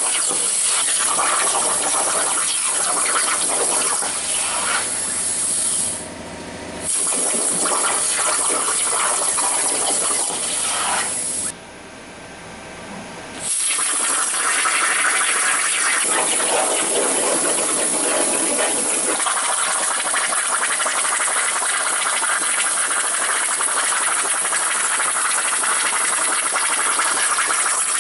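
CNC plasma cutter torch cutting metal plate: a loud, steady hiss of the plasma arc. The sound drops away twice, briefly about six seconds in and for about two seconds near the middle.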